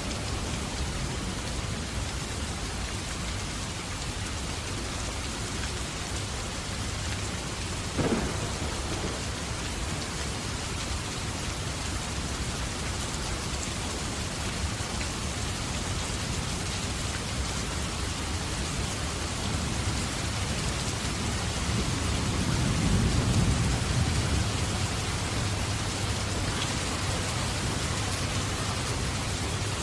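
Steady rain, with a single sharp crack about eight seconds in and a low rumble of thunder swelling and fading about two-thirds of the way through.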